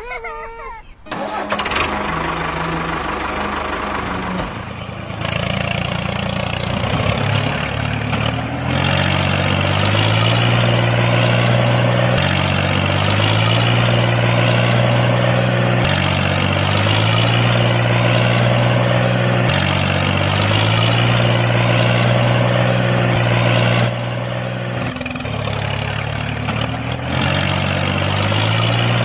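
Tractor engine sound, a steady low drone whose pitch steps up and down in a pattern that repeats about every three and a half seconds. Music before it cuts off about a second in as the engine sound starts.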